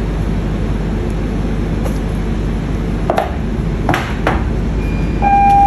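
Hands handling an AirPods cardboard box and its paper insert: a few sharp clicks and taps about three to four and a half seconds in, over a steady background hum. A short steady beep sounds near the end.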